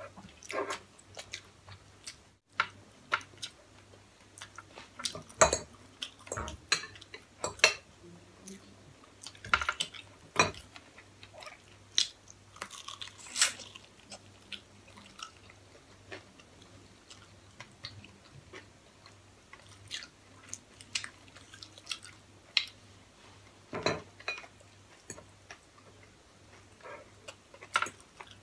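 Close-up eating sounds: chewing, with forks and spoons clinking and scraping against ceramic plates now and then.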